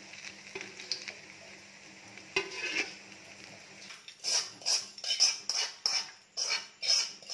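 Bread cubes frying in oil in an aluminium kadai with a faint steady sizzle, then, about four seconds in, a quick run of scrapes, roughly two a second, as a metal slotted spoon stirs against the pan.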